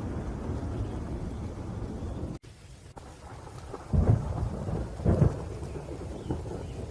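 Thunderstorm: a low thunder rumble over rain cuts off suddenly about two and a half seconds in, then rain continues with two sharp claps of thunder about a second apart.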